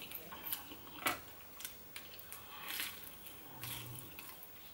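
Close-miked eating sounds: a person chewing fried battered food with the mouth closed, making many small wet clicks and smacks, with a sharper click about a second in. A short low hum comes near the end.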